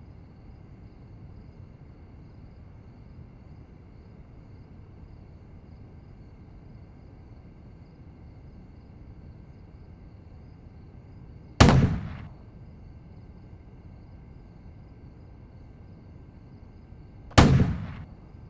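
Two sharp bangs about six seconds apart, the second near the end, each dying away within about half a second, over a faint steady room hum.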